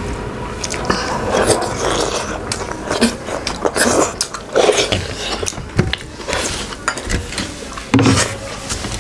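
Close eating sounds: chewing, biting and sucking at soft-cooked meat bones, with irregular small clicks and scrapes of cutlery or plate.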